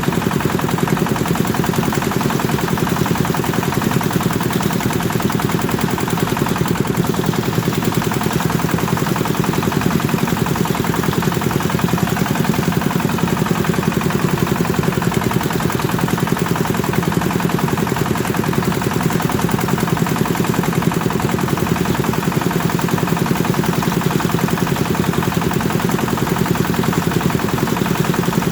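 Kubota engine running a rice threshing machine, steady and loud, with a rapid, even chugging beat.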